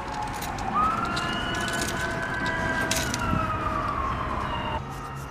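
A siren wailing: the pitch is low at first, rises quickly about a second in, holds high, then falls slowly and cuts off near the end.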